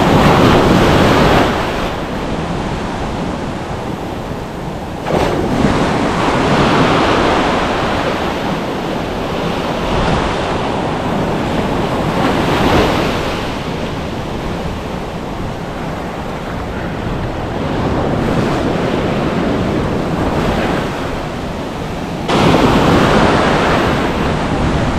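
Ocean surf washing onto the beach in repeated surges, with wind buffeting the microphone. The rush swells and eases several times, rising sharply about five seconds in and again near the end.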